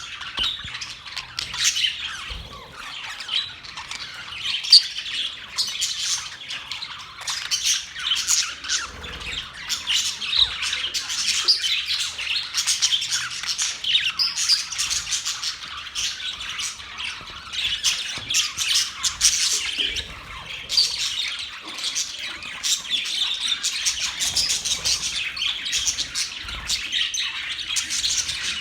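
A group of budgerigars chattering, with a constant overlapping mix of quick chirps, warbles and squawks and no pauses.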